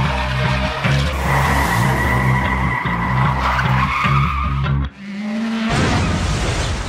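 Motor-racing sound effects of cars at speed with tyre skids over a heavy, pulsing low beat, cut off abruptly about five seconds in. A short steady tone and then a noisy burst follow.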